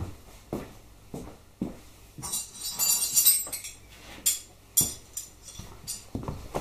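Metal hand tools being handled: a run of sharp clicks and knocks about every half second, then a bright jangle of spanners rattling against each other, and a few more knocks near the end.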